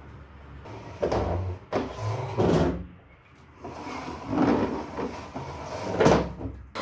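Household handling sounds: a series of short knocks and scrapes of things being moved and set down, like cupboard doors or drawers being worked.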